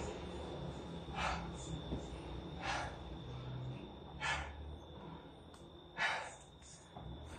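A person breathing hard from exercise, with heavy breaths about every one and a half seconds.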